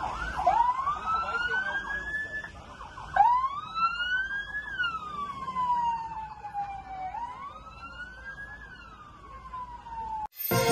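Emergency vehicle siren wailing, its pitch rising and falling slowly over a few seconds at a time, cutting off near the end.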